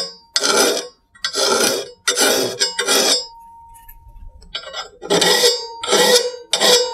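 Hand file rasping across the edge of a steel rotary mower blade held in a vise, about eight strokes in two runs of four with a short pause between: the burr left by grinding is being filed off the cutting edge. The blade rings faintly after the strokes.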